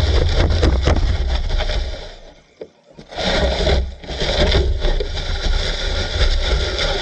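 Camera sled dragged over grass behind a GPTOYS S912 RC car: steady rumbling and scraping, which drops away for about a second a little over two seconds in, then resumes.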